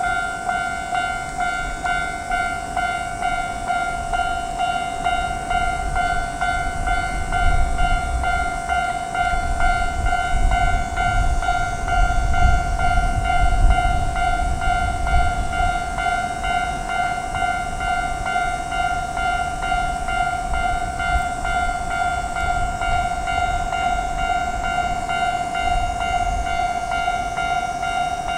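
Japanese level-crossing warning bell ringing continuously, a repeating electronic ding. A train passes through the crossing in the middle, a low rumble that builds, peaks and fades under the bell.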